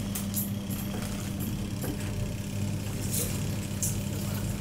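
A steady low machine hum that starts abruptly and holds even, with a couple of faint ticks about three and four seconds in.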